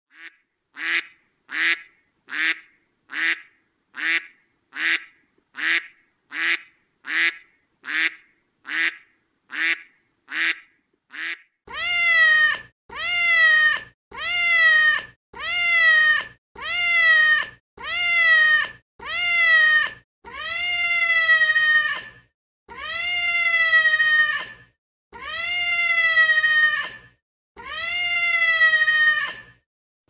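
An animal calling repeatedly: about fourteen short, sharp calls a little under a second apart, then from about twelve seconds in a series of longer, clear, drawn-out calls that rise and fall in pitch and stretch out toward the end.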